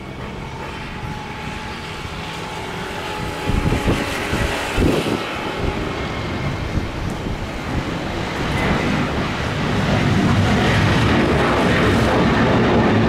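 Jet engines of a Boeing 737 airliner at takeoff thrust, a steady roar with a faint whine as it rolls and lifts off, growing louder about ten seconds in as it climbs out.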